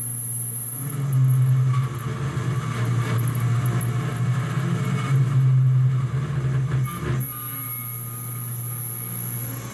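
A 2.2 kW Chinese spindle on a DIY CNC router running a 6 mm four-flute TiAlN-coated carbide end mill through mild steel, the cutting noise swelling and easing as the pass goes on. A high steady whine drops out just after the start and returns about seven seconds in.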